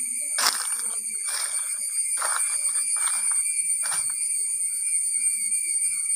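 Steady high-pitched insect buzzing. Over it come five crunching rustles about a second apart, like footsteps on dry leaves, which stop after about four seconds.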